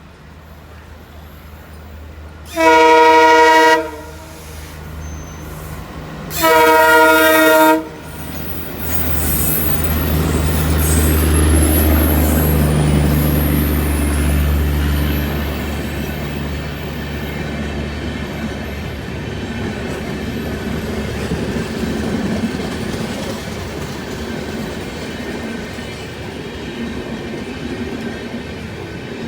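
Twin Alco diesel locomotives sound two horn blasts about three seconds apart, each lasting about a second and a half. Then the low rumble of their engines swells and passes, and the coaches follow with wheels clattering on the rails.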